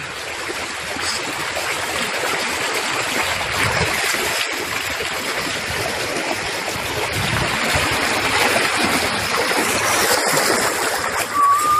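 River water rushing and churning over a shallow stony bed, a steady rushing hiss.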